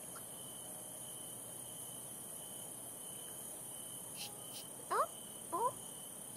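Crickets chirping steadily as a night ambience, with two short rising squeaks about five seconds in.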